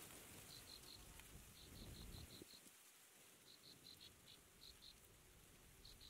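Faint insect chirping, cricket-like: short groups of a few quick, even pulses at one high pitch, repeating every second or so over a quiet background.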